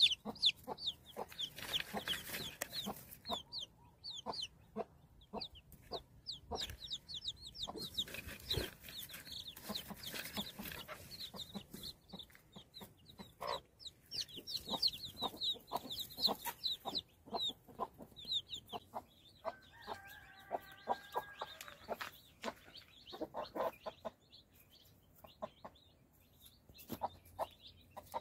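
Newly hatched chicks peeping rapidly and almost without pause, with an adult hen clucking among them. About twenty seconds in, an adult chicken gives one long held call.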